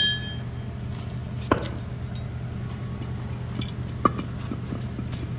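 A few sharp metal clinks from tools on a steel trailer hitch: one at the start, one about a second and a half in and another near four seconds, over a steady low hum.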